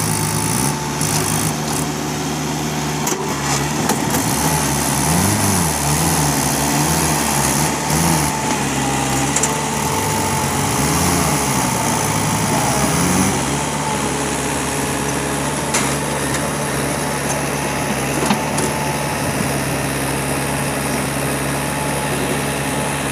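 Diesel engines of a Mahindra 575 DI tractor and a JCB 3DX backhoe loader running together as the tractor hauls a trolley loaded with mud through soft ground. The engine pitch rises and falls repeatedly for the first half as they labour under the load, then settles to a steady drone.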